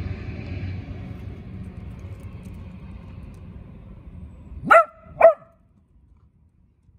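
Small dachshund barking twice, sharp and about half a second apart, over a steady low background rumble that fades beforehand.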